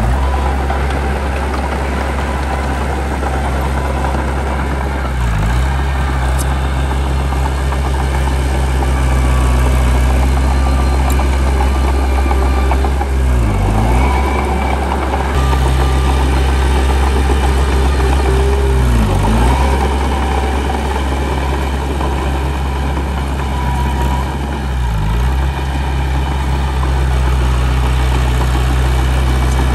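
Heavy diesel engine of earthmoving machinery running steadily, its pitch dipping briefly and recovering every few seconds.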